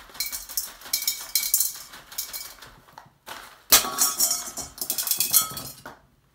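Drainage stones rattling and clinking as they pour through a funnel into a large glass bottle. About three and a half seconds in, the bottom of the glass bottle shatters under the stones with a sudden loud crash, followed by about two seconds of clattering glass and stones with a ringing tone.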